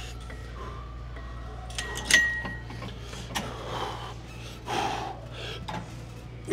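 Gym weights clanking during a set: one sharp metal clank about two seconds in that rings briefly, over a steady low hum, with a few short breathy sounds later on.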